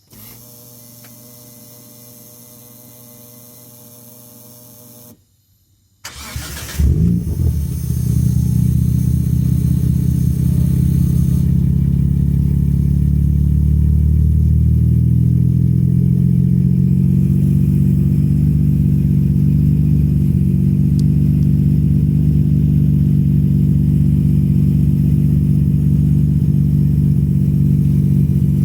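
Nissan Skyline R32 GT-R: a steady whir with a few held tones for about five seconds, which fits the fuel pump running with the ignition on, a pump whose abnormal noise has got worse. After a short pause the RB26DETT twin-turbo straight-six is cranked, catches about six seconds in, and runs at a steady idle.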